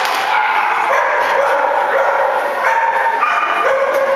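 Border collie barking and yipping without a break while running.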